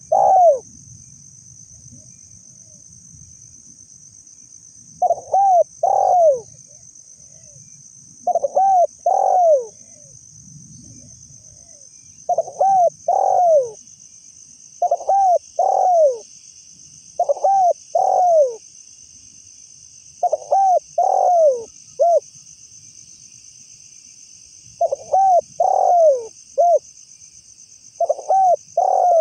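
Spotted dove (tekukur) cooing repeatedly, each phrase a run of two to four arched coos, coming about every three seconds. A steady high insect drone runs underneath.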